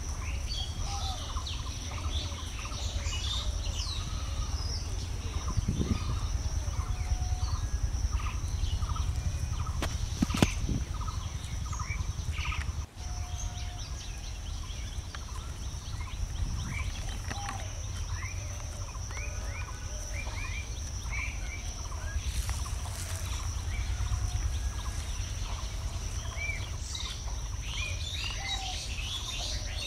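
Many small birds chirping over a steady high-pitched tone and a constant low rumble, with one sharp knock about ten seconds in.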